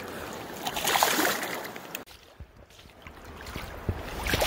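Shallow river water splashing and sloshing around a steelhead being released by hand. It comes in two bursts, about a second in and again near the end, with quieter water in between.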